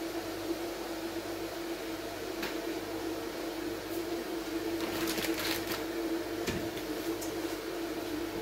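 Steady hum and hiss of kitchen appliances running, including an electric kettle heating water. About five seconds in come a few light clicks and clatters, then a soft knock.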